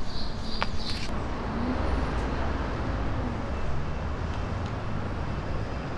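Steady low rumble of road traffic. For about the first second it is overlaid by high, repeated chirping pulses that cut off suddenly.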